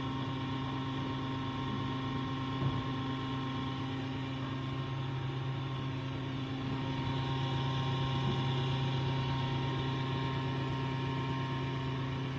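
Arminox 1000 l/h disc separator with a manually cleaned bowl running at speed while separating milk: a steady hum from its motor and spinning bowl.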